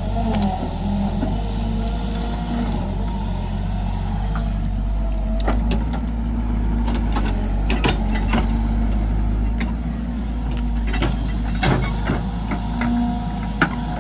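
JCB tracked excavator's diesel engine running steadily, with a wavering hydraulic whine in the first couple of seconds. Its bucket scrapes through mud and debris, giving scattered clicks and knocks that grow more frequent in the second half.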